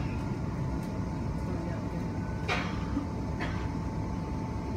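Electric train running along the track, heard from inside the carriage: a steady low rumble with a constant thin whine, and two short clacks about halfway through.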